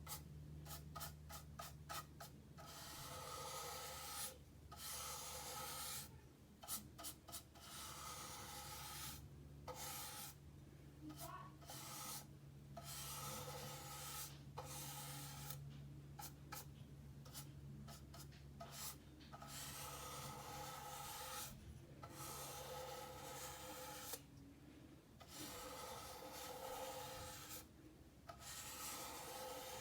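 Repeated rubbing strokes against an airsoft magazine, a scratchy hiss that comes and goes in strokes of a second or two with short pauses. A low steady hum sits underneath.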